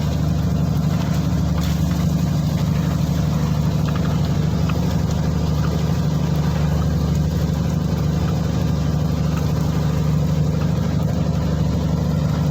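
Boat engine running at a steady speed with an unchanging low drone.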